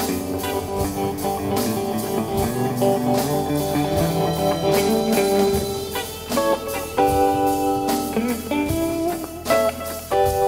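Live blues-rock band playing an instrumental passage, with electric guitar over drums and keyboard.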